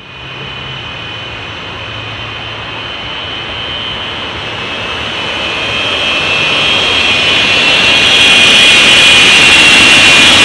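Jet engines of the Aftershock jet fire truck running with afterburner flames from its twin stacks: a steady high whine over a rushing noise, growing steadily louder as the truck approaches.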